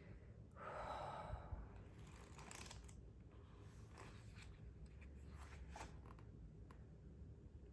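Faint rustle and flick of a book's paper pages being thumbed through and then pressed open, with a few soft page clicks.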